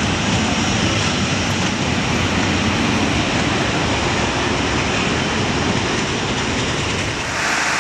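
Coal-fired steam-hauled train running, a loud steady rumble of the locomotive and its carriages on the rails. A hiss comes in near the end.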